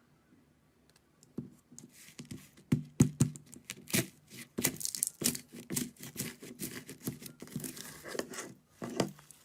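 Slime being handled, giving off irregular crackling and popping clicks that start about a second and a half in.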